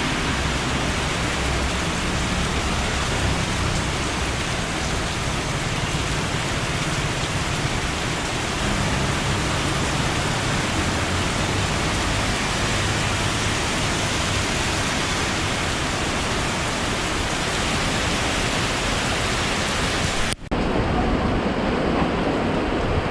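Steady rush of typhoon rain and wind. About twenty seconds in there is a brief dropout, after which the sound is duller.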